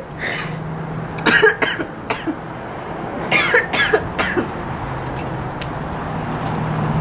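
A young woman coughing and spluttering in several hard fits, typical of choking on a spoonful of dry ground cinnamon. A low steady hum runs underneath and grows louder in the second half.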